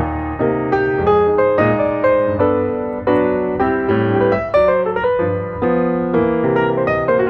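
Background piano music: a steady run of single piano notes and chords struck one after another, each fading after it is struck.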